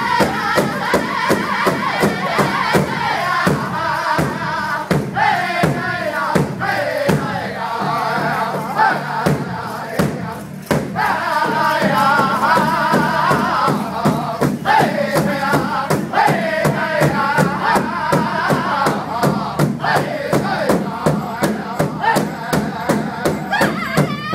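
Powwow drum group: several men beating a shared big drum with sticks in a steady beat while singing together in unison.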